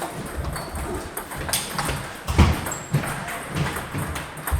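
Table tennis rally: the plastic ball clicking off the bats and bouncing on the table, a sharp knock about every half second, with low thuds underneath.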